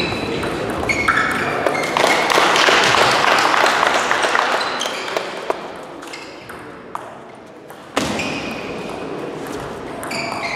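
Table tennis rally: a celluloid ball clicking off bats and the table again and again, with short high squeaks of shoes on the hall floor and voices in the hall. A sharp loud knock comes about eight seconds in.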